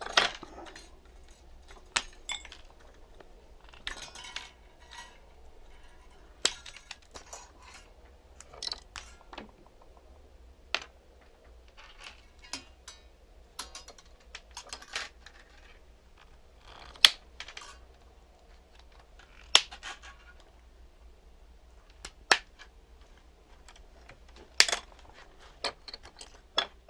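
Side cutters snipping components and their leads off an old circuit board: a series of sharp clicks at uneven intervals.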